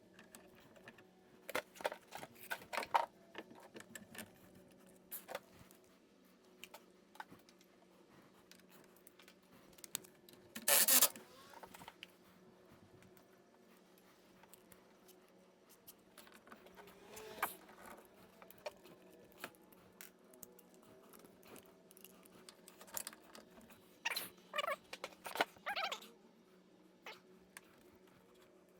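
Scattered clicks and clatter of tools and parts being handled during car repair work. The loudest is a short scraping burst about eleven seconds in, with clusters of clicks near the start and near the end, over a steady low hum.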